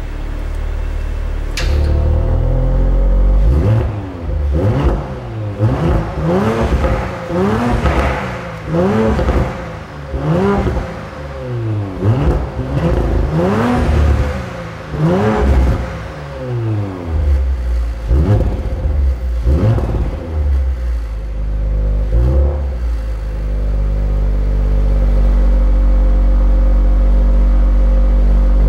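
Audi RS5's 2.9-litre twin-turbo V6, heard from behind at the exhaust, being blipped while stationary. There are about a dozen quick revs, roughly one a second, each rising and falling, followed near the end by a steady hold at raised revs. The drive-select setting is switched from Comfort to Dynamic partway through, the mode said to change the engine sound markedly.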